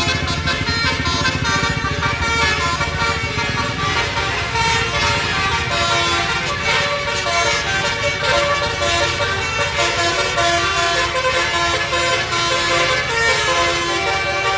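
Basuri telolet musical bus horn playing a melody of changing notes, over a tour bus's engine running.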